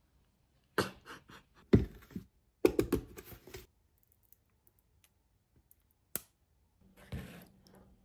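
Clusters of short clicks and knocks from objects being handled, with a single sharp click after about six seconds and a dull thud about a second later.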